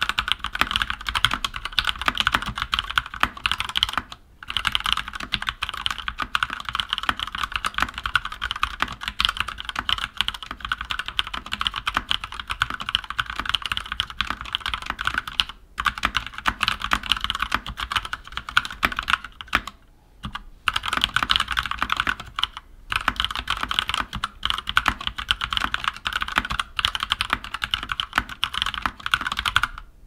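Steady fast typing on a Keychron K14 mechanical keyboard with Keychron Mechanical Red linear switches: a dense run of keystroke clacks, broken by a few brief pauses.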